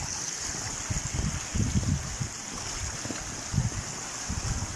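A fast, strong river current rushing and churning past a concrete culvert outlet in a steady hiss. Irregular low rumbles on the microphone sound through it.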